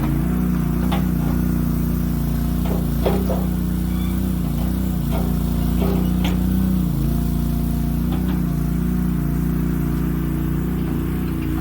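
Boxer 320 mini skid steer's engine running steadily, with a slight drop in pitch about two-thirds of the way in and several sharp metallic knocks scattered throughout.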